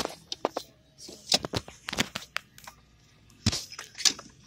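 A string of irregular sharp crackles, clicks and rustles, with short quiet gaps between them, the loudest about a second and a half in and near the end.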